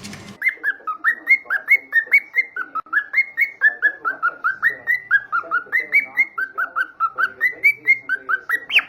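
Pet bird chirping in a fast, steady run of short whistled notes, about five a second, with a louder, higher cluster near the end.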